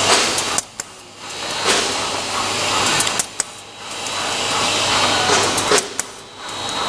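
Pull-up diaper making machine running: a steady low hum under a rushing noise that swells and drops away every few seconds, with a few sharp clicks.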